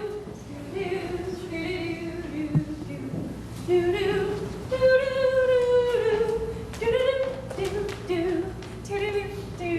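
A woman's voice singing unaccompanied, in short phrases with one long held note about halfway through.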